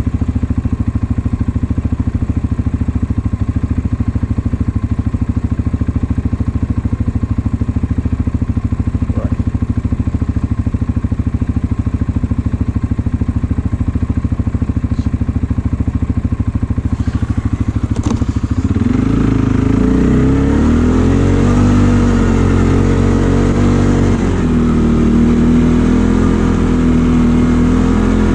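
ATV engine idling with a steady, rapid pulse, then revving up about two-thirds of the way in and running on at higher, rising and falling revs under load.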